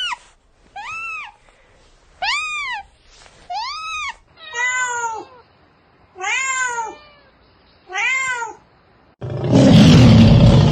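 An animal calling repeatedly: seven drawn-out calls, each rising and then falling in pitch, about one every second or so. Near the end a loud burst of rushing noise takes over.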